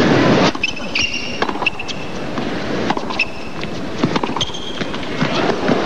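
Tennis crowd applauding and cheering, loud at first and dropping after about half a second to steadier scattered clapping, with a few high whistles from the stands.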